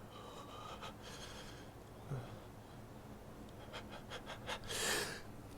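A person's hitching breaths building toward an allergy sneeze: a quick run of short catches in the breath, then a longer gasping inhale near the end.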